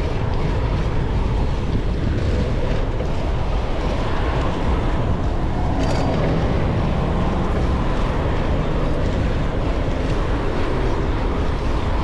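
Wind on the microphone of a bicycle riding through city traffic: a steady low rumble with the noise of passing cars mixed in. A short click about six seconds in.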